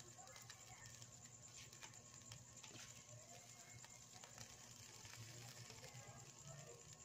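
Faint crackling of a whole tilapia grilling over glowing charcoal, scattered small pops and clicks over a low hum. Hens cluck faintly now and then in the background.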